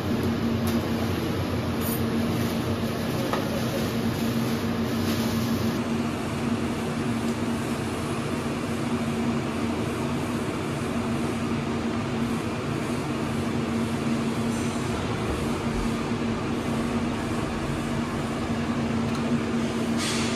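Steady machine hum with an even rushing fan noise and a constant low tone, unchanging throughout: cooling equipment running.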